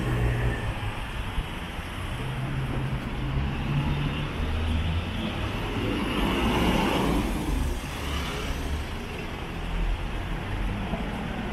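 City road traffic, with motor vehicles running on the street and one passing close, swelling about six seconds in and fading by eight.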